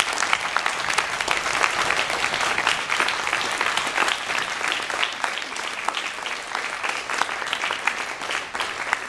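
Audience applauding: many hands clapping at once, slowly dying down toward the end.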